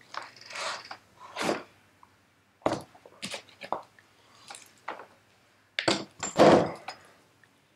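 Handling noise from a BSA Bantam rear wheel, tyre still on, as it is lifted, turned over and set down on a workbench among loose tools: scattered knocks, scrapes and rattles, with the loudest thump about six and a half seconds in as the wheel is laid flat.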